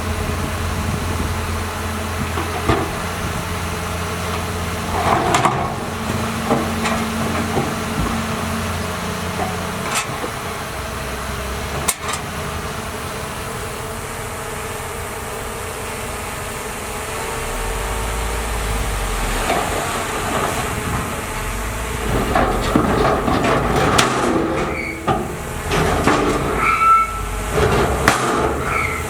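Bulldozer at work: its diesel engine runs steadily under scattered metallic clanks and squeals from the tracks and blade, which grow busier in the last several seconds.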